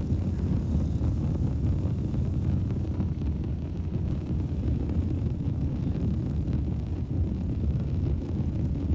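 A steady low rumble with no distinct events, like wind buffeting a microphone or a vehicle running.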